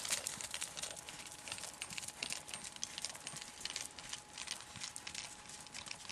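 Hoofbeats of a horse trotting on the sand of a riding arena: a quiet, uneven run of soft thuds.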